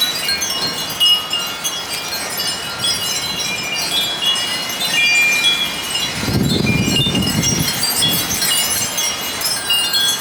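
Metal wind chimes ringing continuously as strong gusting wind jangles them, with a low rush of wind swelling about six seconds in and fading by eight.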